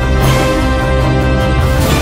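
Background music with a heavy bass and sustained held tones, with crash-like accents twice.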